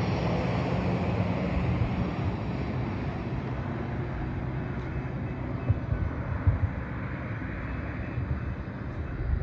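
Amtrak diesel passenger train rumbling away down the track, its engine hum and wheel noise slowly fading as it recedes. A few brief wind buffets hit the microphone about six seconds in.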